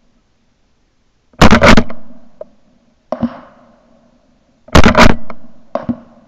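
Gunshots at a wild boar, heard from a camera mounted on the firing gun: two very loud shots about three seconds apart, each ringing on for about half a second. Two fainter, sharp shots come between and after them.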